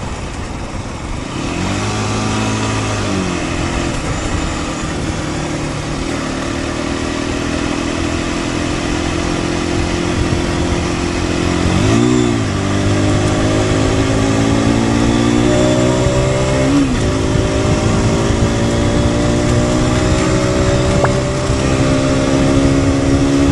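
2023 Aprilia RS 125's single-cylinder four-stroke engine on the move, its pitch rising and falling with the throttle around two seconds and twelve seconds in, climbing again with a break near seventeen seconds, then holding steady to the end. Wind rush runs underneath.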